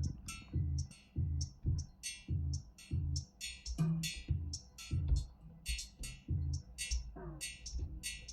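Native Instruments Maschine+ groovebox playing a sampled bass in arpeggiator mode: a steady rhythm of short, repeated low notes with quick high hissing hits between them, and a falling glide about four seconds in and again near seven seconds.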